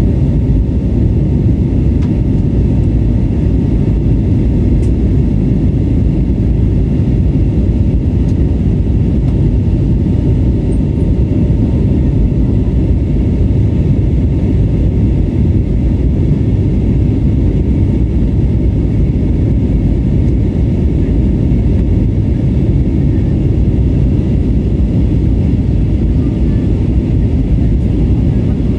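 Steady, loud low rumble inside the cabin of an Airbus A320neo, from its Pratt & Whitney PW1100G geared turbofan engines and the airflow around the fuselage, with a faint steady whine above it.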